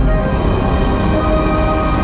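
Dark, ominous ambient music: a steady deep rumble under several long held tones, a sound-design soundscape imagining the inside of Jupiter's atmosphere.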